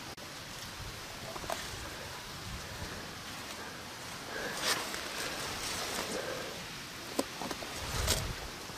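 Rustling of leafy undergrowth and dry leaf litter as a person reaches through the plants by hand, with small clicks and a few sharper crackles about halfway through and near the end.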